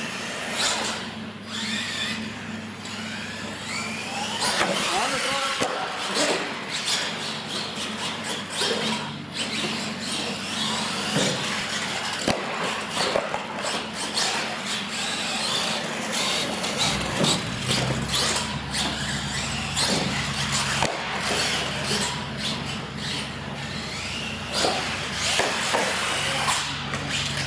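A radio-controlled monster truck's electric motor whining up and down in pitch as it is driven hard, mixed with tyre noise and sharp knocks of ramp landings and tumbles on a concrete floor.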